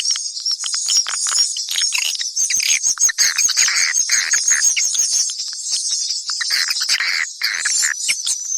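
Swiftlet lure call recording: a dense, continuous stream of rapid high twittering and chirping from swiftlets. It is the kind of call track played to draw swiftlets into nesting houses.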